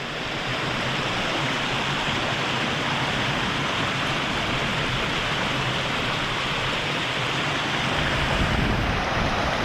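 Rocky brook rushing steadily over stones, a constant even wash of water; a low rumble joins in near the end.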